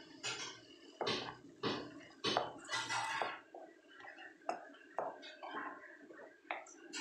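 Thick ground coconut-and-nut paste being emptied from a mixer jar into a pan of cooked tomatoes and onions. There are about five sharp scrapes in the first three seconds, then a spatula stirs the thick mixture, clinking lightly against the pan a few times.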